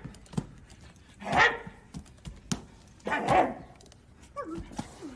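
Barkley, the Sesame Street dog puppet, barks twice, about a second and a half in and again past three seconds, with a few light knocks in between. A short, falling whine comes near the end.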